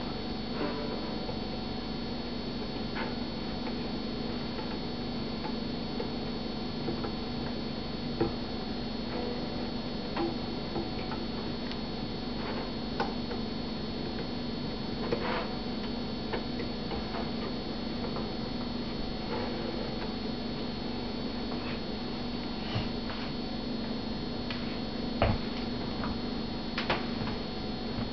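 Scattered small clicks and taps as hands fit a strap around the metal brackets of a banjo rim, over a steady background hum.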